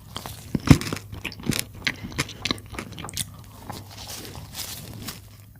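Close-miked eating of chocolate caramel profiteroles: crunchy bites and chewing with many sharp crackles, the loudest crunch a little under a second in, then softer chewing.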